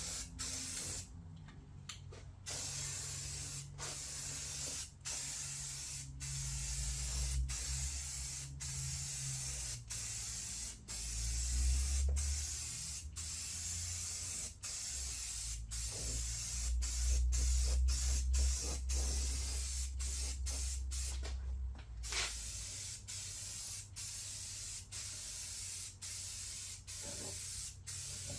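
Paint spraying a second coat: a steady hiss broken every second or so by brief pauses between passes, with a low hum that swells and fades underneath.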